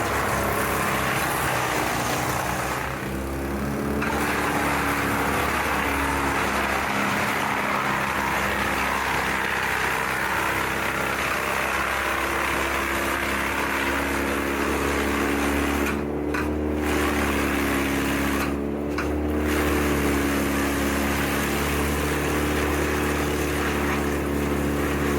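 Wood chipper running steadily, its engine drone under a broad grinding hiss. The higher hiss eases briefly about three seconds in and twice more near the end.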